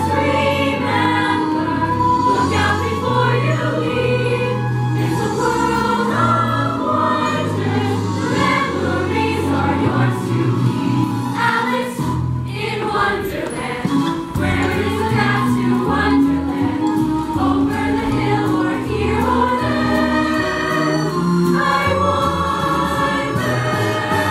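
A large youth cast singing together as a choir in a musical-theatre ensemble number, over an instrumental accompaniment with a steady, pulsing bass line.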